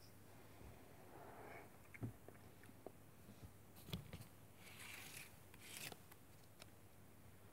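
Near quiet, with faint scraping and rubbing and a few soft clicks, the sharpest about two and four seconds in.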